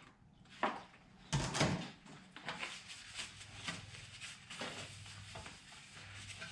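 Rag wiping down a galvanised steel part with wax and grease remover before priming: a couple of short rustling bursts in the first two seconds, then faint, repeated rubbing strokes.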